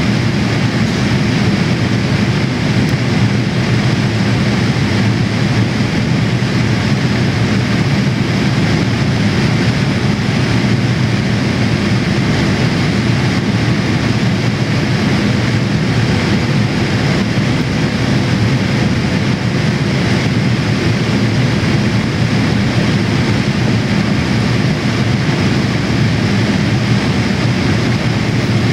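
Steady cabin noise inside a Boeing 787-8 in flight: the engines and rushing airflow heard through the fuselage as an even, deep rush that holds unchanged, with a faint steady hum above it.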